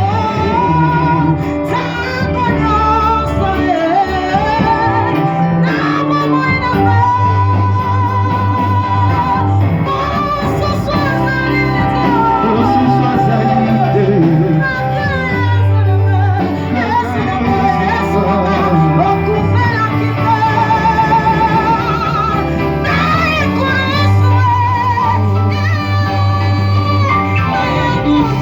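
Gospel singing with a female lead voice over a band with bass and guitar, in a large hall.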